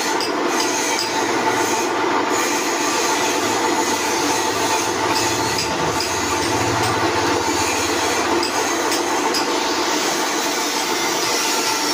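Large column drill press running, its bit drilling into a workpiece held on the table: a steady mechanical whir with several held tones.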